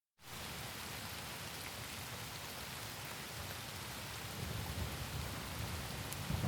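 Steady rain hiss that starts suddenly, with a low rumble of thunder building near the end.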